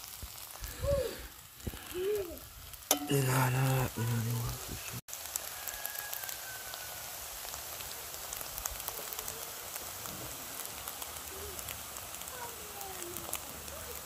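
Sausage slices and scrambled egg sizzling in a frying pan: a steady hiss with fine crackles. A few spoken words come in the first seconds, and there is a sudden drop-out about five seconds in.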